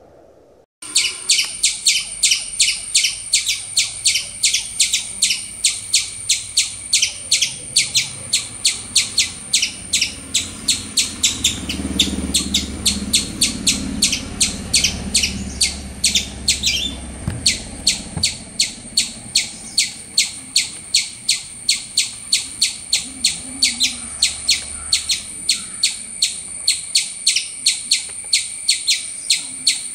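High, sharp chirping call repeated evenly about three times a second, starting about a second in, with a low rumble in the middle.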